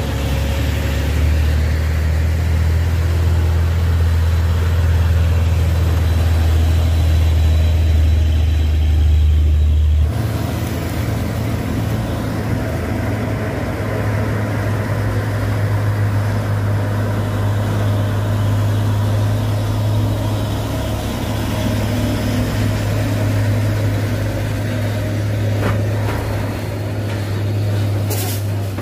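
Heavy diesel cargo truck engines pulling up a hill grade, a deep steady drone. About ten seconds in the drone changes abruptly to a slightly higher engine note.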